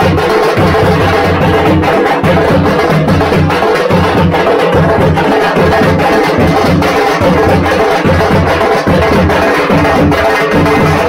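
Tamate (thappattai) frame drums beaten with thin sticks by a group of drummers, joined by a barrel drum. They play a loud, dense, unbroken rhythm.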